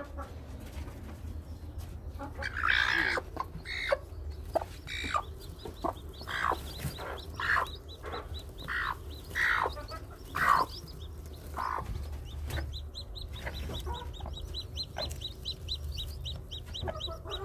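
Broody hen sitting on hatching eggs, clucking in a string of separate calls about once a second as a hand reaches under her. In the second half a newly hatched chick peeps rapidly and high-pitched.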